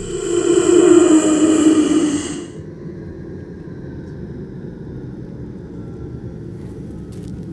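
Film sound-design effect: a loud, rich tone that slides downward in pitch for about two and a half seconds, then fades into a low, steady rumbling drone.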